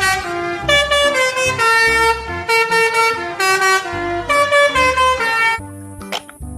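An Indonesian 'telolet' bus horn playing its multi-note tune: loud horn tones stepping from note to note in short repeated phrases. It stops about a second before the end, leaving a few faint clicks.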